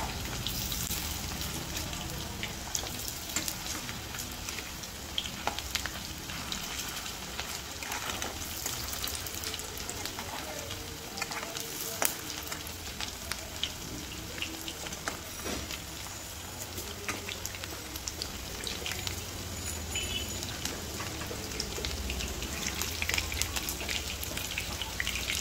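Marinated chicken pieces sizzling and crackling steadily as they shallow-fry in hot oil in a non-stick kadai, with now and then a sharper click of a metal spatula turning them. The frying brings them to a golden-red colour.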